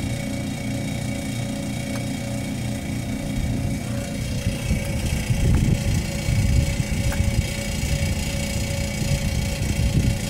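A motor running steadily, a low hum with several held tones. From about four seconds in, irregular low rumbling joins it, and there are a few faint clicks.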